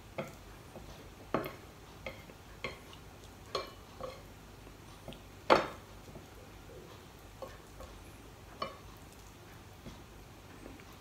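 Wooden chopsticks clicking and scraping against a plate while picking up noodles: a scattering of short, irregular clicks, with one louder clack a little past halfway through.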